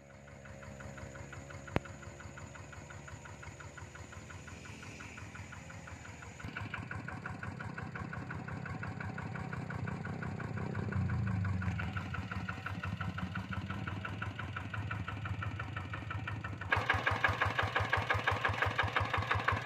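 Single-cylinder Kubota RD diesel engine of a two-wheel hand tractor chugging at a steady, even beat while the tractor works a muddy field. It gets louder about six seconds in and again near the end, and there is one sharp click about two seconds in.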